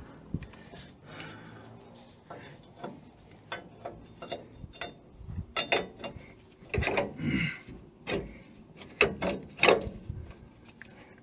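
Irregular knocks, clicks and scraping of metal as a compressed rear coil spring, held in a spring compressor, is worked back into its seat on a Land Rover Discovery's axle. The knocks are louder and more frequent in the second half.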